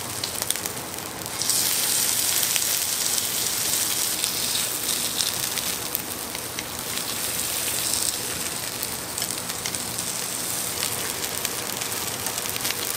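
Horse meat and its fat sizzling and spitting on a hot cast-iron grill plate: a steady hiss with small crackles, getting louder about a second and a half in.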